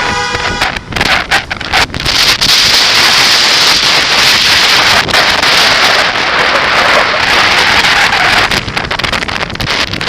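Wind rushing loudly over the microphone of a moving bicycle, with a horn blast cutting off about half a second in.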